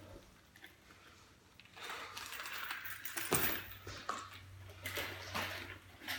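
Nunchaku being swung and handled: a run of swishes and light clacks, with a sharp knock a little over three seconds in.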